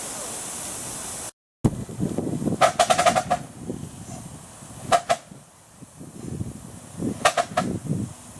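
Miniature steam locomotive: a steady hiss of escaping steam, then, after a cut, the engine working in short bursts of rapid exhaust beats over a low rumble, the bursts about two seconds apart.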